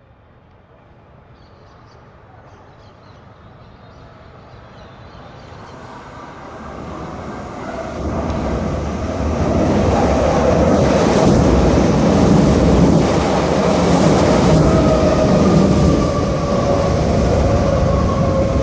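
A train approaching and going by: its rumble grows steadily louder over about ten seconds, then runs loud and steady with a ringing wheel tone and a few clacks, the tone sinking slightly in pitch near the end as it passes.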